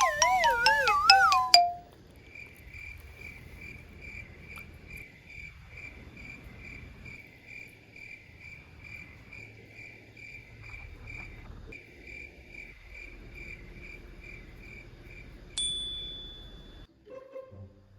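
Cricket chirping in a steady high pulsing rhythm. It is opened by a loud wobbling, falling whistle sound effect and interrupted near the end by a sudden bright ding.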